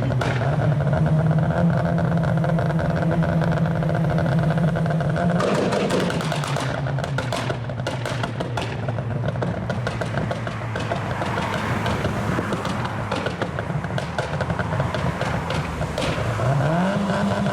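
Tuned car engine held at steady high revs, then dropping off about five seconds in into a long run of exhaust pops and crackles on the overrun; the revs climb again near the end.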